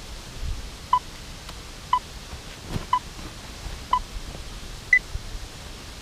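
Phone countdown timer beeping: five short beeps a second apart, then one higher beep about five seconds in that marks the start of the timed set. A steady hiss runs underneath.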